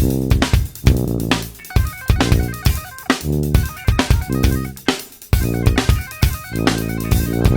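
Background music with drums and guitar, a steady beat of drum hits.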